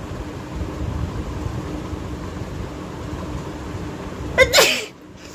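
A woman sneezes once, about four and a half seconds in: a brief voiced 'ha' straight into a sharp, loud blast of breath.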